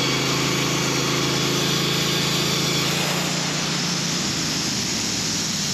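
Logosol portable bandsaw mill running under power as the saw head travels the length of a log, a steady engine note over the noise of the blade. About three seconds in, the note shifts slightly as the saw head clears the end of the log.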